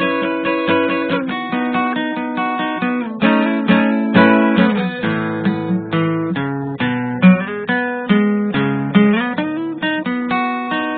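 Background music on acoustic guitar, with plucked notes and chords that keep a steady rhythm.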